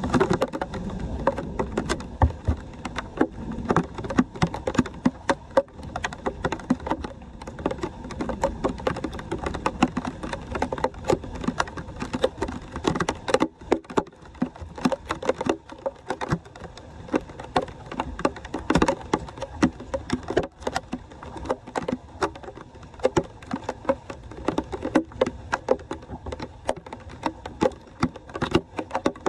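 Floodwater draining into a leaf-clogged street drain grate, with a dense, irregular patter of splashes and drips.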